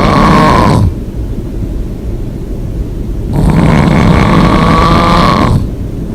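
A person snoring hard with the mouth open: loud, rattling snores about two seconds long, one fading out just under a second in and another from about three and a half seconds to five and a half seconds, with quieter breathing between.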